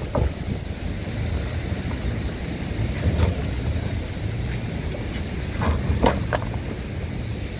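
Four-wheel-drive SUV engine running steadily as it climbs a steep, rocky gravel track, with wind noise on the microphone. A few sudden sharp knocks and crunches of tyres on rock break through, the loudest about six seconds in.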